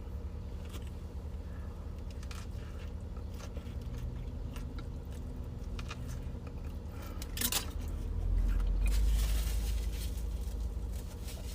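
Close-up chewing and mouth sounds of someone eating a tuna sandwich, with scattered small clicks. A steady low hum runs underneath and swells into a louder rumble about eight seconds in.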